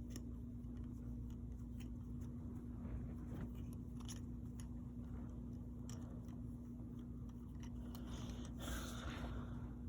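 Scattered small clicks of plastic Mega Construx building pieces being handled and fitted together, with a brief rustle near the end, over a steady low hum.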